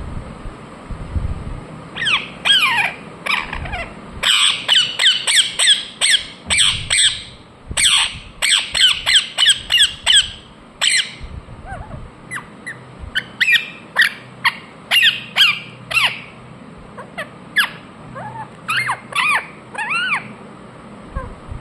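Ringneck parrot calling in quick runs of short, sharp chirps that slide down in pitch, about four or five a second, starting about two seconds in. The calls become sparser and more spread out in the second half.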